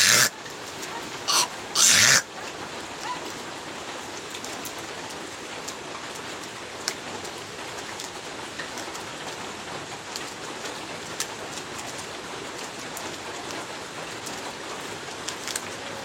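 A person spitting three times in quick succession, short loud breathy bursts in the first two seconds. After that, the steady hiss of heavy rain.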